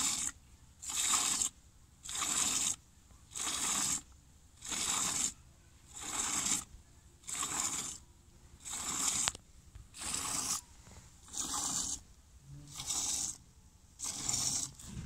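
A cow being milked by hand: streams of milk squirting with a hiss, one squirt roughly every two-thirds of a second in a steady rhythm.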